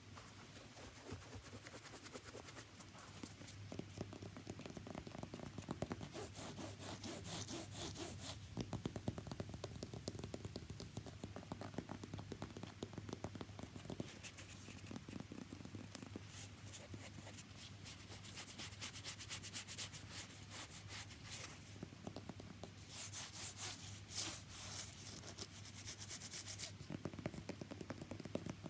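Rapid scratching and rubbing on a shoe, a continuous run of quick strokes, growing louder and brighter at about six to eight seconds in and again at about 23 to 27 seconds in.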